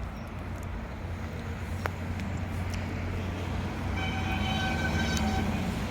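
A vehicle going by: a steady low rumble that slowly grows louder, joined about four seconds in by a steady, high, horn-like tone lasting about a second.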